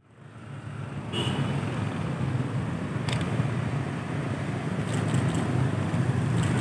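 Street traffic: cars and motorbikes passing close by with a steady low engine hum, fading in from silence at the start.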